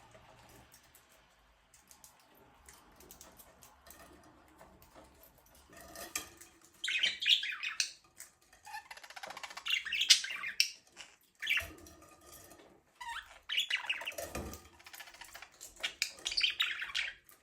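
Budgies chirping and chattering in repeated bursts, starting about six seconds in after a quiet stretch.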